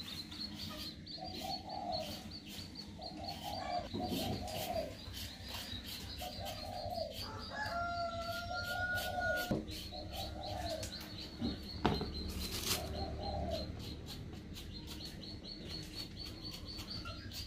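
Chickens clucking in short calls every second or two, with one longer, level call held for nearly two seconds about eight seconds in, over a steady fine crackle.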